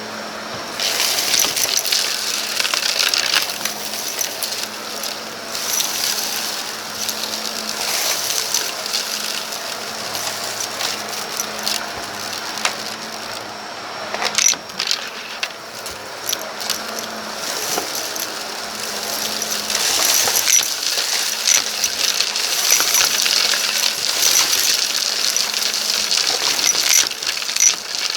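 Vacuum cleaner running steadily while sucking up a gritty 'sandstorm' debris mix from a rug. The particles crackle and rattle densely through it, rising and falling in intensity.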